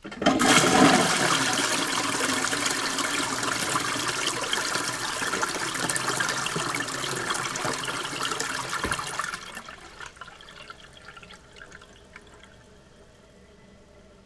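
Toilet flushing: a sudden loud rush of water that lasts about nine seconds, then dies down to a much quieter steady hiss and trickle.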